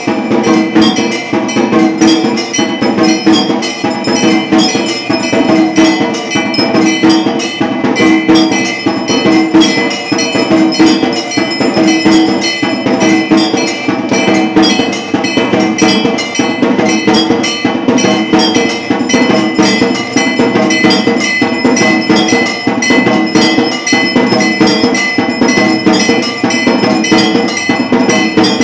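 Temple bells clanging rapidly and continuously during an aarti, over a steady repeating beat.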